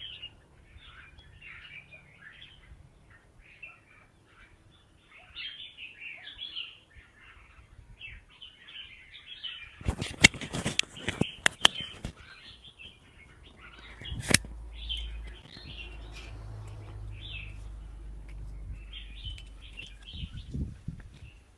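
Red-whiskered bulbuls chirping and calling over one another, many short overlapping notes. A cluster of sharp clicks comes about ten seconds in, with one more a few seconds later.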